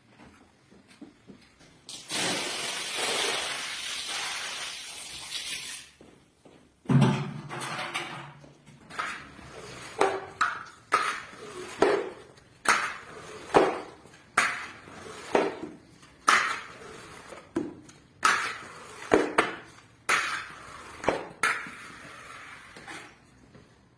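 Wet rug being cleaned: a steady hiss for about four seconds, then a series of short rhythmic scrubbing strokes, roughly one a second.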